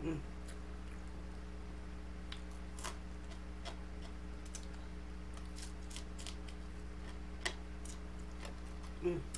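Eating sounds of a person eating fried tilapia with her fingers: scattered wet mouth clicks and lip smacks while chewing, over a steady electrical hum. There is a short closed-mouth 'mm' at the start and another near the end.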